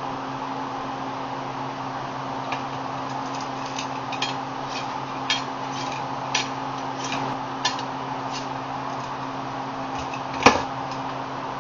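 Scattered light clicks and taps of kitchen prep, then one sharp knock about ten seconds in as a chef's knife comes down on a plastic cutting board. A steady low hum runs underneath.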